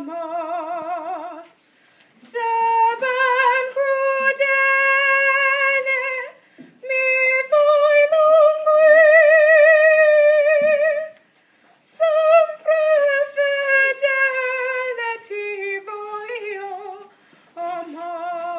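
A woman singing solo and unaccompanied in a clear high voice, in phrases with long held notes carrying a strong vibrato, separated by short pauses for breath.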